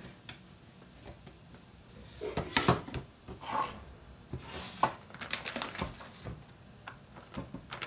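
A plastic food packet crinkles and rustles as it is handled and opened, with irregular knocks and scrapes of a wooden chopping board on the counter.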